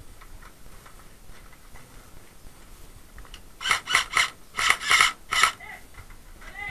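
Airsoft rifle firing a quick string of about six short single shots, starting about three and a half seconds in, inside a small wooden hut.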